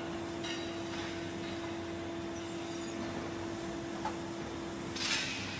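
Induction melting furnace humming with a steady electrical tone while aluminium bronze ingots heat to red in its crucible. A short metallic clatter comes about five seconds in.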